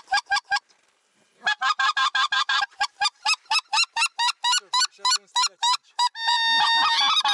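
Hand-blown goose call sounding a fast, even run of short honks to draw in approaching geese. A brief pause comes near the start, and about six seconds in some longer held honks join the run.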